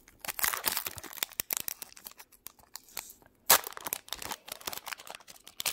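Foil wrapper of a Pokémon trading card booster pack crinkling and tearing as it is ripped open by hand, with one sharp, loud crackle about three and a half seconds in.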